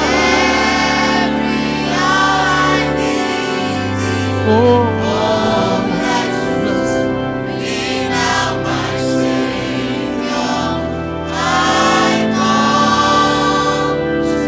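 Church choir singing a gospel worship song over a sustained, changing bass line from the accompaniment.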